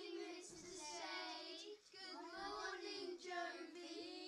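A child singing a slow melody with long held notes, fairly quiet.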